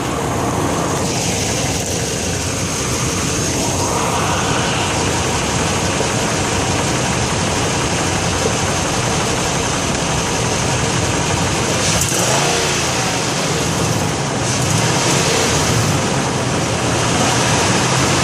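2008 Nissan Titan's 5.6-litre V8 running, with the rattle that the owner suspects is either a loose exhaust heat shield or a broken catalytic converter.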